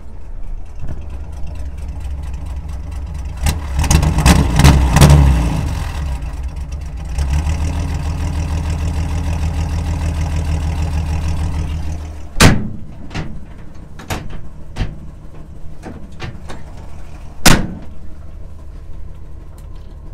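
1964 Chevrolet C10 pickup's engine idling low and steady, louder for several seconds in the middle, when it is heard close to the tailpipe. Two sharp knocks stand out in the second half.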